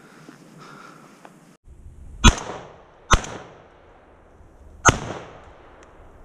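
Three gunshots, the second close behind the first and the third about a second and a half later, each followed by a short echo. They are hunting shots at a black squirrel running through the treetops, the first ones missing before it is hit.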